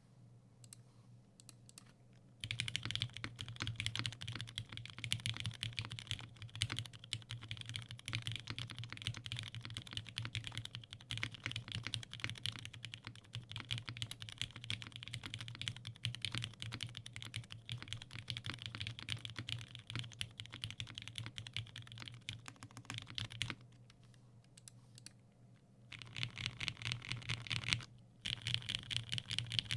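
Typing on a custom Singa x TGR Unikorn R2.1 mechanical keyboard: lubed Cherry MX Black Hyperglide linear switches on an aluminum plate, under GMK keycaps, with no dampening. A fast, continuous run of keystrokes starts about two seconds in, stops for a couple of seconds about three-quarters of the way through, then picks up again with one more short break near the end.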